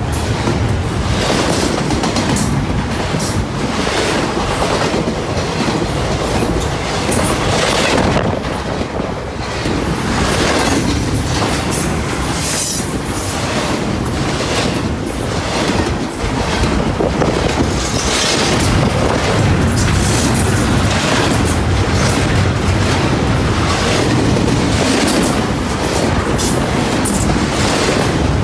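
Freight cars of a Norfolk Southern train rolling past, the wheels clacking steadily over the rail joints.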